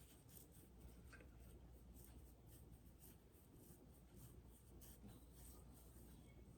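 Faint rubbing of massaging hands on skin: a run of soft, quick scratchy strokes over a low steady hum.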